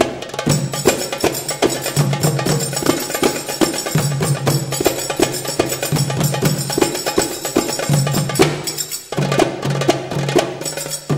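Instrumental percussion music with quick wooden clicks and drum strokes over a low, repeating pitched bass pattern. There is a brief drop-out about nine seconds in.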